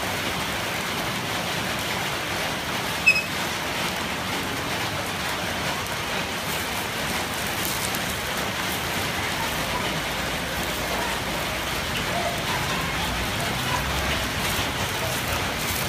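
Nom kruk coconut-rice batter sizzling in an oiled cast-iron mold pan: a steady crackling hiss. A single short metallic clink is heard about three seconds in.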